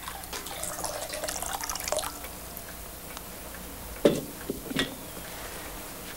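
Water poured from a jug into a metal washbasin, splashing and trickling for about two seconds, then two short knocks about two and three seconds later, the first the loudest.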